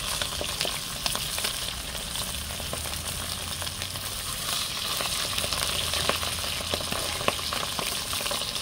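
Sprat fish sizzling steadily as they fry in hot oil in a pot, with scattered clicks and scrapes of a spatula turning them.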